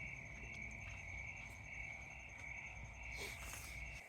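Crickets trilling steadily, a continuous high pulsing chirr, with a brief rustle a little past three seconds in.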